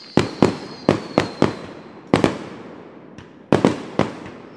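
Fireworks going off: about ten sharp bangs in quick, irregular clusters. A faint high whistle runs under the first half.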